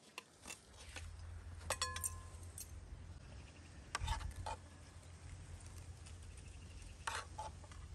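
Dishes or utensils clinking: a sharp clink that rings on briefly about two seconds in, with a few more light knocks later, over a low steady rumble.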